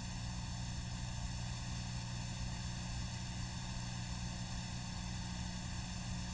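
Steady low electrical hum with an even hiss over it: the background noise of an old tape-transferred soundtrack, with no music or speech.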